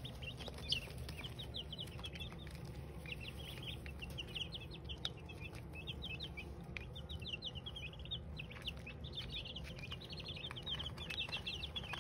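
A brood of baby chicks and ducklings peeping, with quick runs of short, high chirps that keep coming from many birds at once.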